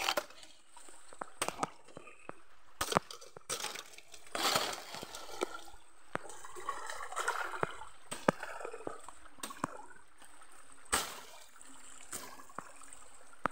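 Water flowing and gurgling in a strong-running stream, with frequent sharp snaps and rustles of grass stems and twigs as someone pushes through thick undergrowth.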